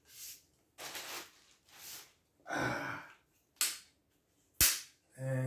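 Vivitar photo/video tripod being extended to full height by hand: a few short rushing sounds, then one sharp click about four and a half seconds in, the loudest sound.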